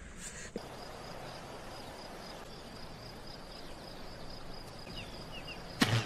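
Outdoor ambience in rain: an even hiss with a steady high insect trill, a few short chirps about five seconds in, and a single loud thump just before the end.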